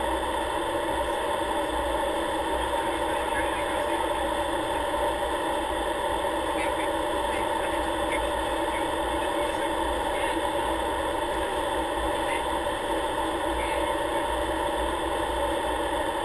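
Steady aircraft cockpit noise in flight on approach: the engine running evenly under a constant rush of air, with no change in power.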